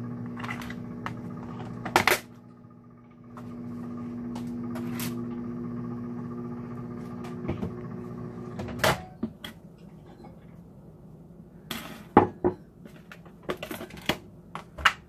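Microwave oven running with a steady hum. It stops with a door click about two seconds in, runs again for about six seconds, and ends with a loud clunk. Near the end come several clacks of a ceramic mug and a plastic tub being set down on a wooden table.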